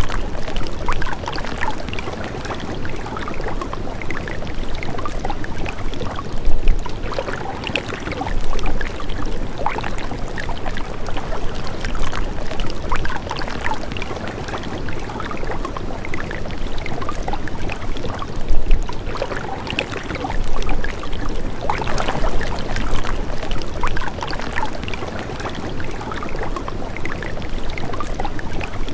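Flowing, splashing water running steadily, with many small irregular splashes and a few louder swells.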